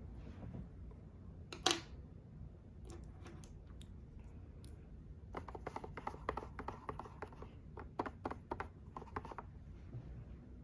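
Small, sharp clicks and taps of makeup products and cases being handled: one sharper click about one and a half seconds in, a few scattered ticks, then a quick, dense run of clicking in the second half.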